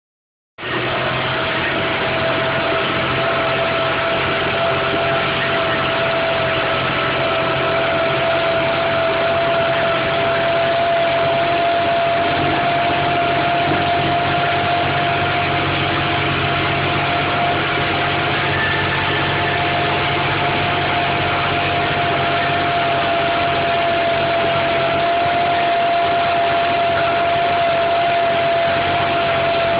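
Tractor engine running steadily under ploughing load, with a constant whine above the engine note.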